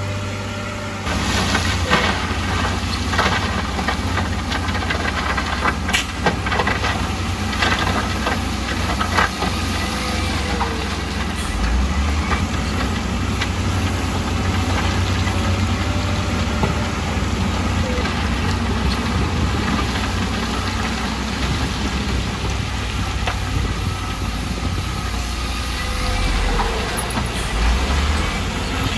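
Diesel engines of heavy construction machinery running steadily, with a series of sharp metallic clanks and knocks during the first ten seconds or so.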